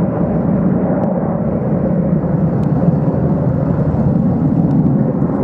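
Boeing 737-200 jetliner climbing away at takeoff power, its two Pratt & Whitney JT8D low-bypass turbofans giving a loud, steady low rumble.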